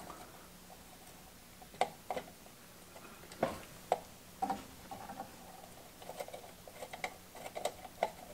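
Small hand tools clicking and tapping against the metal of an old radio chassis as an RF coil is unfastened for removal. The clicks are scattered and sparse at first, then come quicker and closer together from about halfway on.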